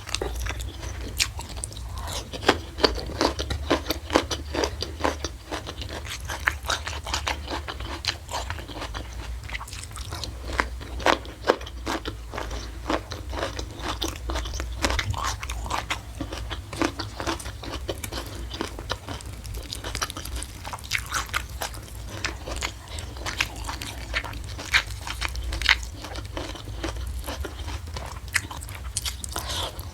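A person chewing and biting food close to the microphone: irregular crisp crunches and mouth clicks, many a second, over a steady low hum.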